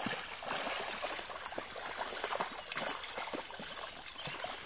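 Shallow lake water splashing and sloshing in many small, irregular splashes as a hooked fish thrashes at the surface and the angler wades beside it.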